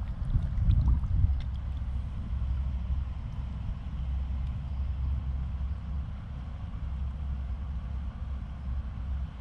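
Stream water running over stones, heard as an even hiss over a steady low rumble. A few louder bumps and clicks come in the first second or so.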